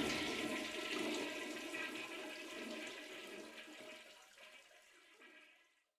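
Water rushing and gurgling, with a faint ringing, fading out over about five seconds.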